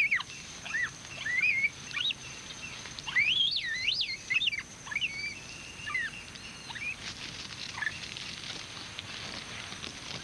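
High whistled chirps that glide up and down in pitch, scattered throughout and busiest about halfway through, over a faint steady high tone.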